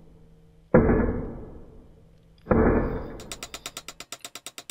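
Small metal hammer striking the end of a toy car's steel axle to peen it over, with the axle gripped in vise grips: two sharp blows that ring and die away, then, from about three seconds in, quick light taps at about six a second.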